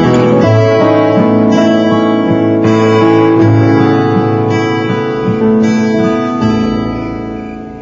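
Instrumental close of a song: plucked guitar over sustained piano chords, fading out near the end.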